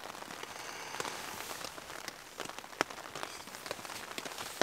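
Rain falling on a tent, heard from inside: irregular sharp drops tapping on the fabric over a steady hiss, a couple of drops landing louder than the rest.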